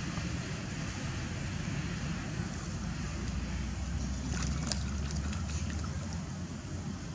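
Macaques swimming, their movement stirring light splashes about four to six seconds in, over a steady low outdoor rumble.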